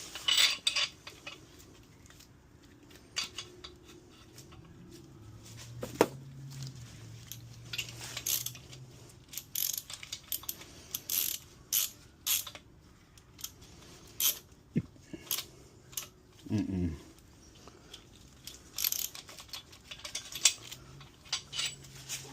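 A ratchet wrench clicking in short strokes as the main bearing cap bolts are run down, with a few knocks of metal on metal.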